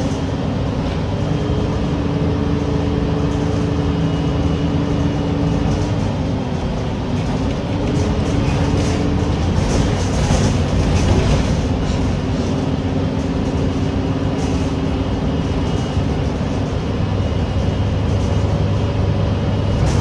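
City transit bus heard from inside while under way: a steady engine and drivetrain drone with a whine whose pitch shifts a few times, over road noise, with a patch of rattling about halfway through.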